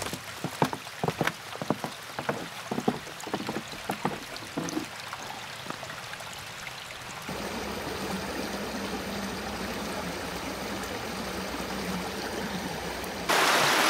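A run of irregular crunches and knocks, then a steady rush of running creek water that becomes much louder near the end.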